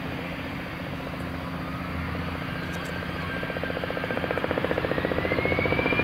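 Airbus A320-216's CFM56 jet engines spooling up for takeoff: a whine that rises in pitch and grows louder, with a fast pulsing beat coming in over the second half.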